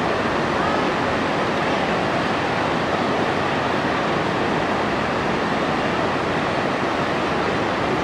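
River water rushing steadily over a low weir and shallow rapids, an even, unbroken roar.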